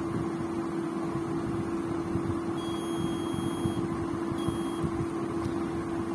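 Digital multimeter's continuity beeper sounding as the probes touch a MOSFET whose pins are shorted internally: a high beep lasting about a second, then a brief second beep, the sign that the MOSFET is damaged. A steady low hum runs underneath.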